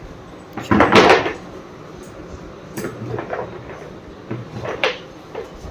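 A refrigerator door being shut: one rushing thud about a second in, followed by a few light knocks and clatters of containers.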